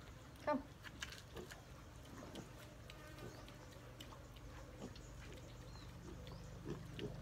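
Wild boar piglet eating banana from a hand, with many small chewing and smacking clicks. There is a short vocal sound about half a second in, and a low steady hum throughout.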